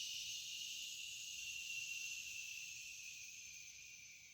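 A person imitating the wind with one long, breathy hiss, like a drawn-out "shhh". It slowly fades near the end.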